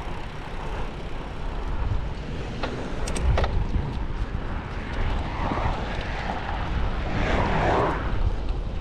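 Wind rumbling and rushing over the microphone of a moving bicycle, with a few sharp clicks about three seconds in and two swells of rushing noise later on.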